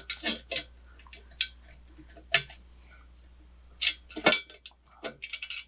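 Metal parts of a turbo header and wastegate knocking and clicking together as they are handled and fitted. There are scattered sharp taps, the loudest about four seconds in, and a quick run of small clicks near the end.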